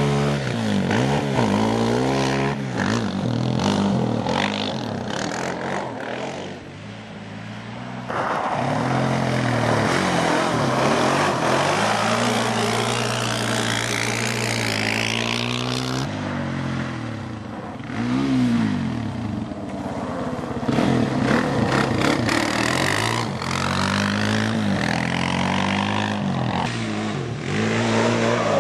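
Arctic Cat DVX 400 quad's single-cylinder four-stroke engine revving hard, its pitch rising and falling over and over as the rider accelerates, shifts and backs off through the corners.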